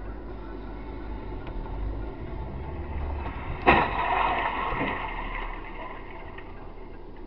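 A car crash: a police car hits a red station wagon with a sudden loud bang about halfway through, and the noise of the collision trails off over the next two seconds. It is heard from inside a car over a steady low cabin rumble.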